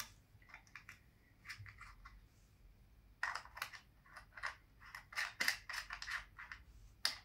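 Hard plastic parts of a gooseneck phone holder clicking and scraping as they are handled and fitted together: one click at the start, a few scattered ones, then a quick run of small clicks and scrapes from about three seconds in.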